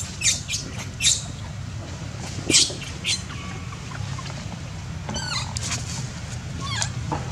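Baby macaque squealing: short high-pitched cries over several seconds, with a quick string of chirps about five seconds in. A steady low hum runs underneath.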